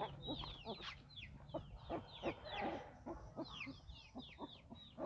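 A litter of young puppies, eyes just opened, squeaking and whimpering: many short, high, falling squeaks, several a second.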